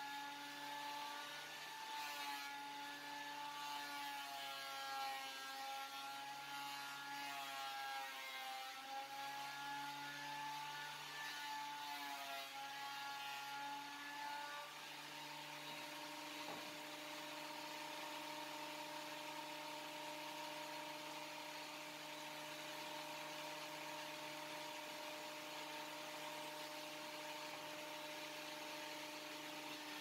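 WEN benchtop thickness planer's motor and cutterhead running as a board passes through: a whine whose pitch wavers under the load of the cut for about the first half. About halfway through the load comes off and it settles to a steady, slightly higher pitch, running free.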